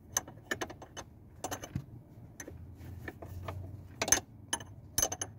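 Sharp metallic clicks and taps of a 12 mm open-end wrench on the lock nut of a truck's clutch pedal push rod, irregular and loudest twice near the end, as the upper lock nut is loosened for a clutch pedal adjustment.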